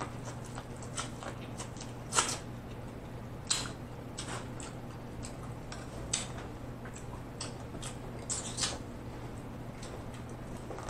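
Close-miked eating of corn on the cob: irregular crunchy bites and wet mouth clicks, loudest about two seconds in and again near nine seconds, over a steady low hum.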